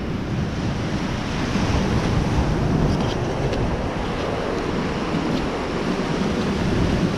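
Surf washing onto the beach, with wind buffeting the microphone in a steady low rumble.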